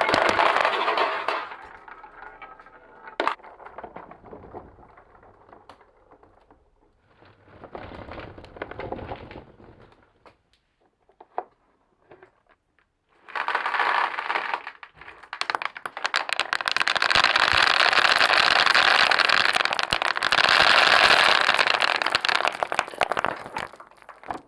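Wooden balls rolling and clattering down a marble run. A dense rattle of many clicks at the start fades to quieter rolling with a few single clicks, then a long loud run of clattering starts about halfway through and goes on until near the end.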